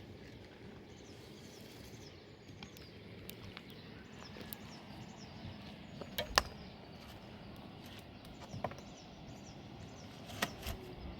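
Steady outdoor background noise broken by a few sharp knocks, the loudest a close pair about six seconds in.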